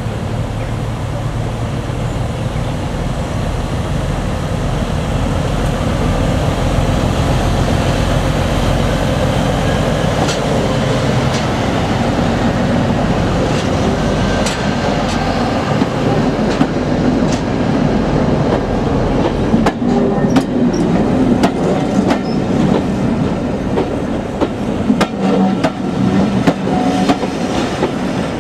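Class 17 Clayton diesel locomotive passing slowly with its engine running low and heavy, followed by its coaches rolling by with wheels clicking over the rail joints. The engine rumble dominates the first half; the clicking takes over from a little past halfway.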